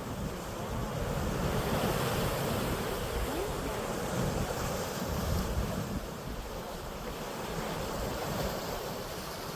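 Sea waves washing in a steady wash of surf that swells and eases slowly, with wind buffeting the microphone as a low rumble underneath.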